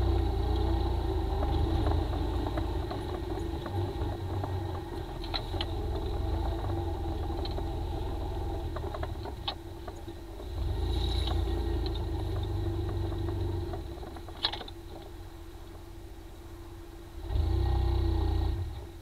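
Suzuki Ozark quad's single-cylinder engine running over a rough, muddy dirt track, its revs swelling and easing several times. A few sharp knocks come from the jolting ride, the loudest about fourteen seconds in.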